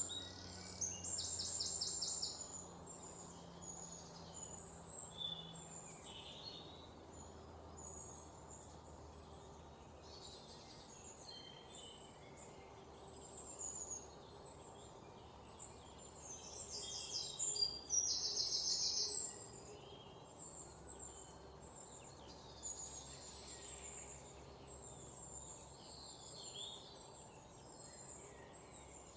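Several songbirds chirping and calling over a faint steady background hiss, with two louder fast rattling trills: one near the start and a longer one about two-thirds through.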